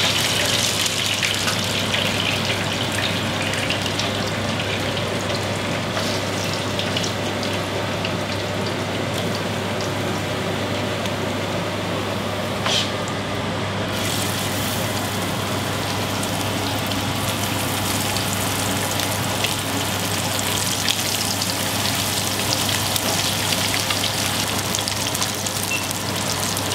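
Snakehead fillets shallow-frying in hot oil in a non-stick pan: a steady sizzle with crackles. About halfway through, the sizzle grows brighter and denser as another fillet is laid into the oil.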